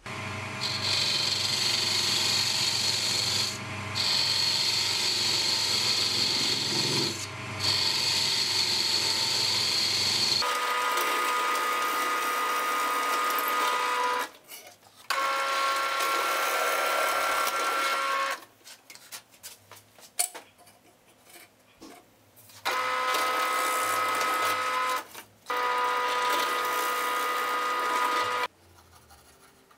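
A thin steel parting tool cutting into a wooden blank spinning on a lathe, making a steady high scraping hiss that lets up briefly twice. About ten seconds in it gives way to a drill press motor whining as it drills holes through wood, running in four spells with short quiet gaps between them.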